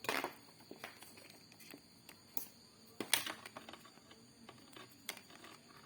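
A few sharp clicks and taps of a plastic MC4 solar connector being handled as its cable nut is tightened.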